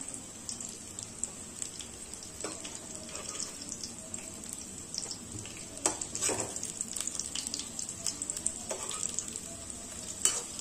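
Batter-coated gourd slices shallow-frying in hot oil in a kadai over a low flame, a steady sizzle full of small crackles. A metal spatula scrapes and taps the pan a few times as the pakoras are turned, most strongly about six seconds in.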